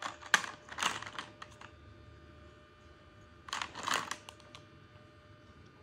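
Small hard plastic toy food pieces clicking and clattering in a plastic tray as they are picked through, in two bursts: one in the first second and a half and another about three and a half seconds in.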